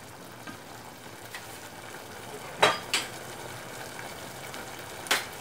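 Shrimp-cream sauce simmering and sizzling in a saucepan, a steady hiss. Three sharp clacks of kitchenware against the pan cut through it: two close together about two and a half seconds in, and one near the end.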